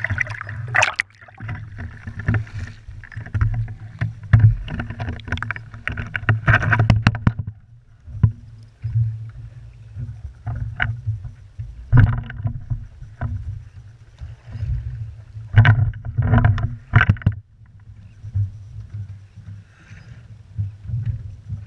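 Muffled water sloshing and a low rumble, heard through an action camera's waterproof housing as it comes out of the sea, with clusters of sharp knocks and splashes as the housing is handled and bumps against a hard plastic surface. It goes quieter near the end.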